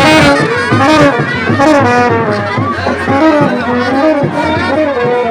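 Indian wedding brass band playing a loud, bright melody on trumpets and other brass.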